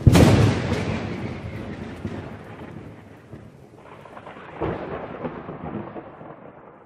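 Thunder sound effect: a sharp, loud thunderclap at the start that rolls away over a few seconds, then a second, quieter roll of thunder about four seconds in that fades out.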